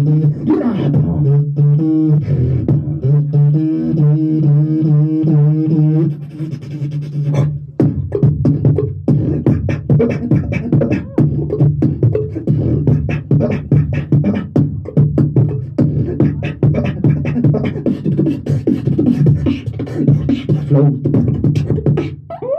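Solo beatboxing into a handheld microphone: a steady held bass note runs underneath throughout, with a wavering pitched vocal line over it for the first several seconds, then rapid, dense percussive clicks and hits from about seven seconds in.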